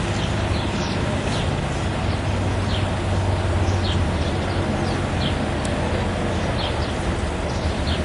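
Steady low engine rumble of a military vehicle convoy driving past. Short high bird chirps come roughly once a second over it.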